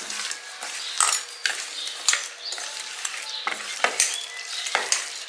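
Hands mixing rohu fish pieces into a spice marinade in a stainless steel bowl: wet squishing and rubbing, with irregular clicks and scrapes as fish and fingers knock against the steel.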